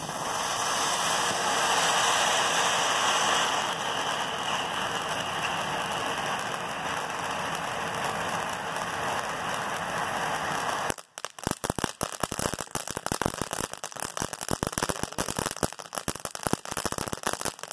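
Keystone Fireworks' Tye Dye Surprise cone fountain burning: a steady loud hiss as it sprays sparks, switching about eleven seconds in to dense crackling, many sharp pops in quick irregular succession.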